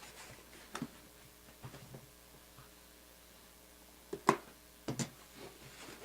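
Handling noises: a few short knocks and rustles, the loudest about four seconds in and another about a second later, over a faint steady hum.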